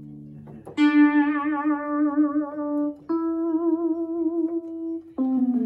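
Software synthesizer notes played one at a time from an Arturia KeyLab Essential 61 keyboard controller. A low held note dies away, then a bright note with vibrato sounds about a second in and holds for two seconds. A second vibrato note follows at about three seconds, and a lower note comes in near the end.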